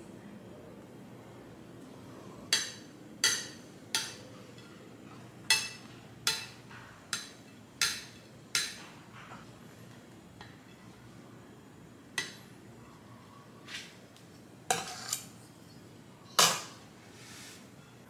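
Metal frosting spatula clinking against dishware while frosting is spread on a cake: about a dozen sharp, irregularly spaced clinks, starting about two and a half seconds in.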